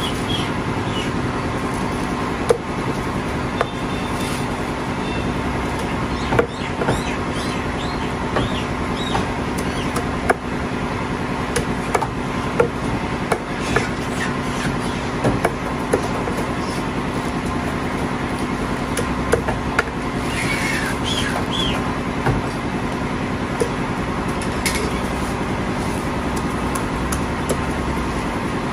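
Meat cleaver chopping through chicken on a wooden stump chopping block: sharp, irregular knocks every second or two, over a steady mechanical hum.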